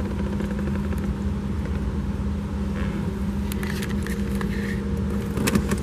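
The fuel-injected Shelby 351 V8 of a 1969 Ford Mustang idling steadily, with a few light clicks and knocks in the second half.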